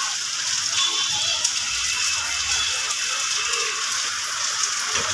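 Beaten egg frying in oil on a flat iron tawa, with a steady, even sizzle.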